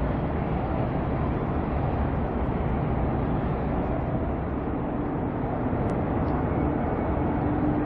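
Steady low rumble of ship engines and harbour noise on the water, with a faint steady hum joining about halfway through.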